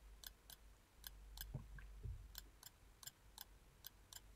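Faint, irregular clicks of a computer pointing device's button, about ten in four seconds, as edges are selected one after another.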